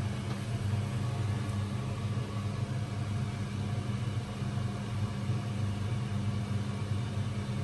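Steady low machine hum, unchanging throughout.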